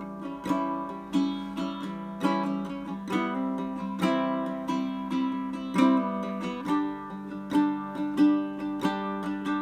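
Ortega RU5-BA Bonfire Series baritone ukulele being played, picked notes and chords ringing out at about two to three plucks a second.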